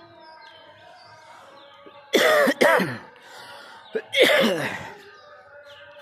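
A man coughing hoarsely while unwell with a cough: a double cough about two seconds in and another about four seconds in. Birds chirp faintly in the background.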